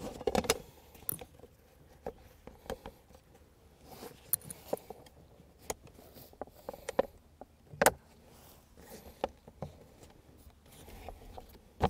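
Scattered clicks, knocks and rustles of a collapsible camping table being assembled: the polyester tabletop and its rods being slid and pressed into the frame's supports. One sharper knock comes about eight seconds in.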